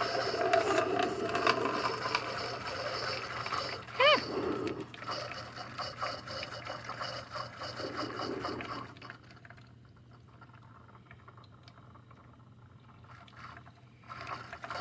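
Tastyle single-serve coffee maker brewing a K-cup: a steady hiss and trickle of hot water being pumped through, with a brief pitched gurgle about four seconds in. It drops to a much quieter trickle after about nine seconds.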